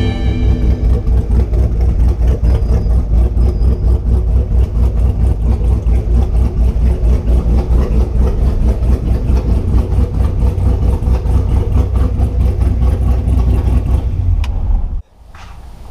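The 5.3-litre LS V8 in a 1967 Mustang running with a deep, rapidly pulsing exhaust note. It stops abruptly near the end.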